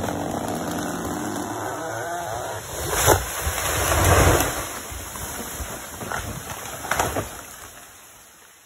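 Chainsaw engine dying away, then a sharp crack, a loud low rushing crash and another crack a few seconds later.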